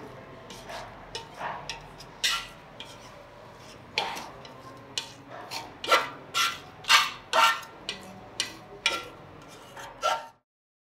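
A metal scraper blade scraping blistered old paint off a steel Vespa body panel: a series of short, sharp scraping strokes, not evenly spaced, that stops suddenly about ten seconds in.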